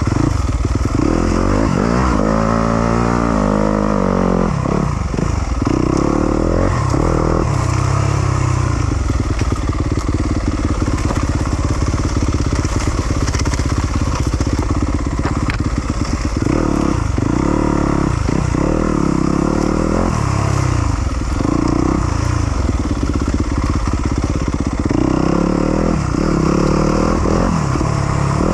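Yamaha YZ250FX 250cc four-stroke single-cylinder dirt bike engine revving up and down over and over as the throttle is worked, with quick rises and drops in pitch.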